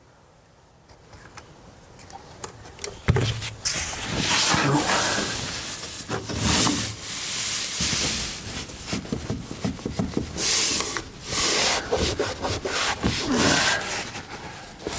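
A cabinet toe-kick strip, backed with construction adhesive, being pushed into place under a cabinet base: a sharp knock about three seconds in, then repeated scraping and rubbing as it is slid and pressed home.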